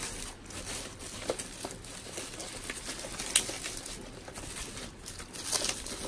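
Bubble wrap and thin plastic packaging crinkling and crackling as it is handled and pulled off a small box by hand: a steady run of small crackles, with one sharper snap about three and a half seconds in.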